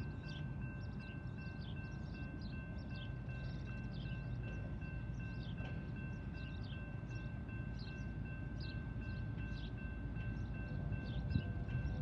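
Outdoor ambience of birds chirping over a low rumble, with two steady high-pitched tones held throughout. The rumble grows a little louder near the end.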